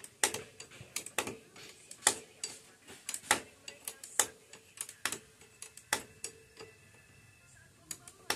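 Steel wrenches clicking and clinking on a scooter's rear axle nut as it is worked loose to take the wheel off: sharp separate metallic clicks, sometimes two or three close together, with short gaps between.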